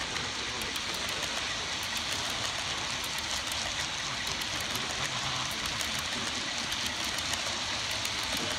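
Model-railroad coal hopper cars rolling past on the track: a steady rushing whir of small wheels on rail, sprinkled with many quick light clicks as the trucks pass over rail joints.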